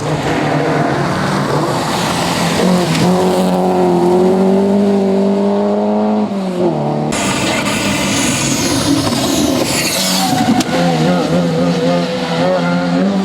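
Rally car engines running hard on a stage, revving up and dropping back between gear changes. The sound changes abruptly about seven seconds in, to a second car.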